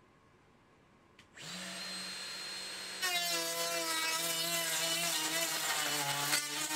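Handheld router with a rebate cutter switched on about a second and a half in, spinning up to a steady whine. About three seconds in it starts cutting a rebate into the edge of OSB board, growing louder and rougher as the cutter takes load.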